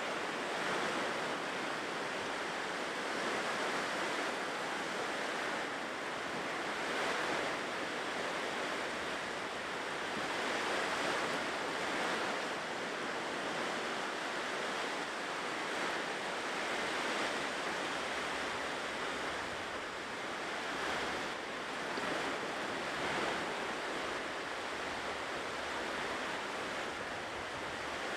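Ocean surf breaking and washing onto a shore: a steady rush of water that swells and eases gently.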